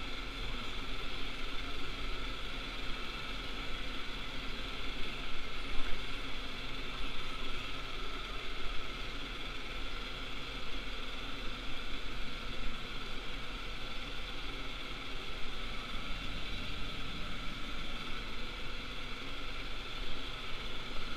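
Tractor engine running steadily under way, heard from inside the cab, with a constant mechanical rattle.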